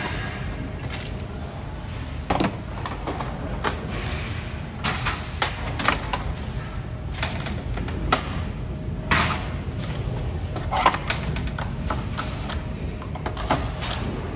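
Plastic covers and parts of a copier's document feeder being handled and taken off by hand: irregular clicks and knocks, over a steady low hum.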